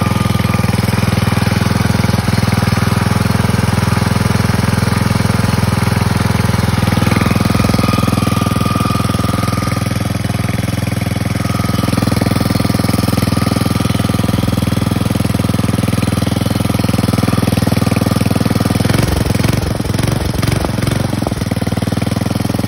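Small go-kart engine running steadily, its sound unsettled for a couple of seconds near the end.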